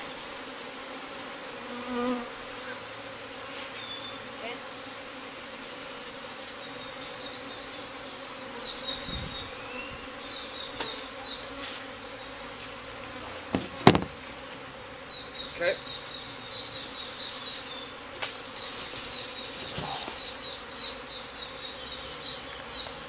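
Honeybees buzzing in flight around an open hive, a steady hum. Scattered sharp knocks and clicks sound over it, the loudest about 14 seconds in.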